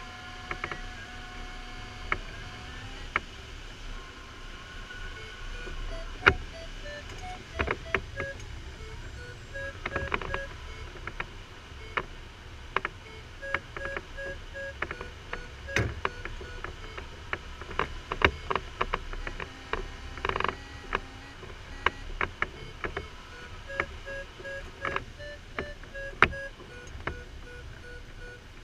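Glider's electronic variometer beeping in runs of short tones that step up and down in pitch, the audio signal of climbing in lift, over steady airflow hiss in the cockpit. Frequent sharp clicks and knocks from the airframe and canopy come through it.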